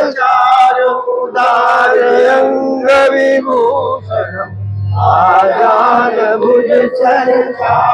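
Group of men singing a Hindu aarti to Lord Vishnu in chorus, a devotional chant, with hand clapping along.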